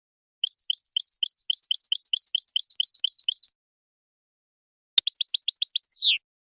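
European goldfinch singing: a fast run of repeated high chirping notes lasting about three seconds, then a sharp click followed by a shorter run that ends in a falling slur.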